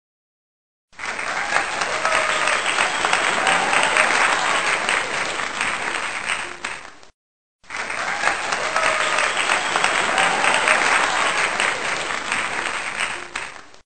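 Recorded crowd applause and cheering, played twice in a row, each time for about six seconds and fading off at the end.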